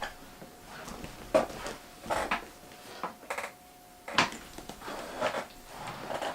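Scattered light knocks, clatter and rustling of objects being handled and moved about, the two sharpest knocks about a second and a half in and about four seconds in.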